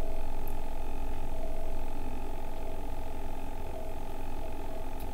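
A steady hum made of several held tones with a low rumble under it, unchanging throughout: constant background noise on the recording.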